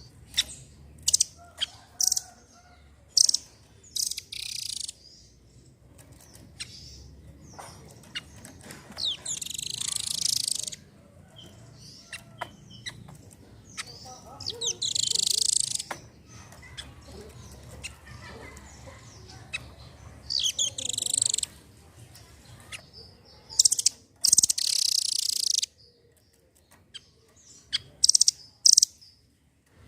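Nuthatch singing: sharp high chirps, then several rapid trilled phrases of a second or two each, the loudest near the middle and about three-quarters of the way in, and a few more chirps near the end.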